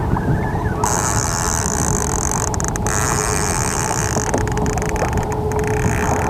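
Steady wind and water noise on an action camera's microphone aboard a kayak on choppy water, with a high hiss for a few seconds starting about a second in and a few scattered clicks.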